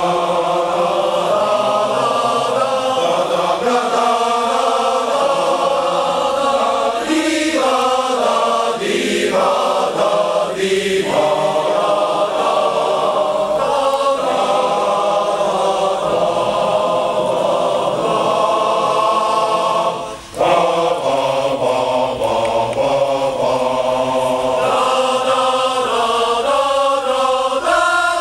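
Large men's choir singing in parts, with one brief break about twenty seconds in before the singing resumes.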